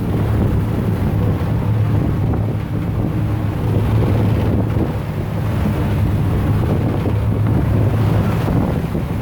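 Boat engine running steadily with a low drone, and wind buffeting the microphone.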